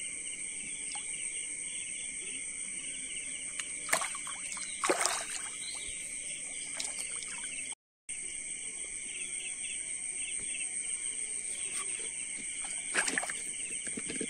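Night insect chorus, a steady high chirring with a fast repeating pulse, with a few brief knocks and splashes from handling at the water, around four to five seconds in and again near the end. The sound cuts out for a moment about eight seconds in.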